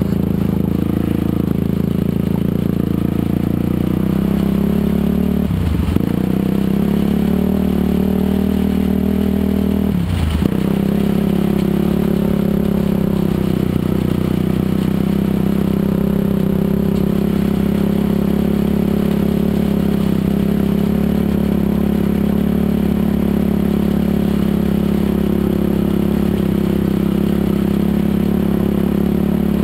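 Dirt bike engine running at a steady pitch while riding. The engine note breaks briefly twice, about six and ten seconds in.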